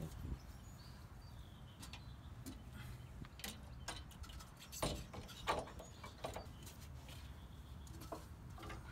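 Scattered light clicks and knocks as a compressed Dobinsons progressive coil spring, clamped in spring compressors, is worked by hand into the rear spring pocket, with the loudest knock about five seconds in.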